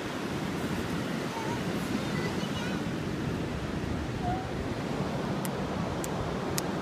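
Pacific surf washing steadily onto a flat sandy beach, a constant rushing hiss. A few faint short calls sound in the distance, and a few light clicks come near the end.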